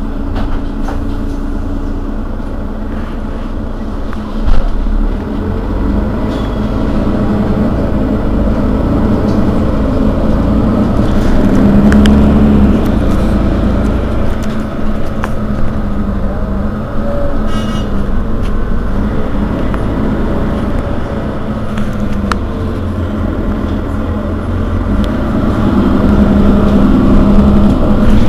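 Mercedes-Benz Citaro Facelift city bus's rear-mounted engine idling while the bus stands still, swelling in level around twelve seconds in and again near the end. A brief knock sounds about four and a half seconds in.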